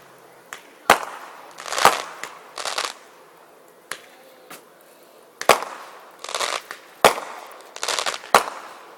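Fireworks exploding: about five sharp bangs, several followed by a spray of crackling, with a lull in the middle.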